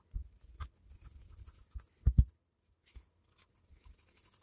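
A small screwdriver working the tiny bayonet-mount screws out of a camera lens: light scratching and scattered small clicks, with a pair of short knocks about two seconds in.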